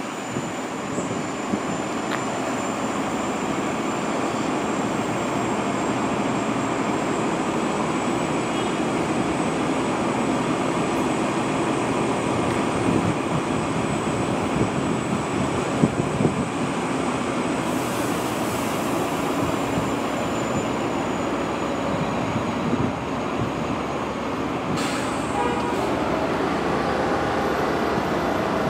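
Bombardier R62A subway train moving along the track: a steady rumble of wheels and running gear with a thin, steady high whine over it, and a brief hiss about two-thirds of the way through.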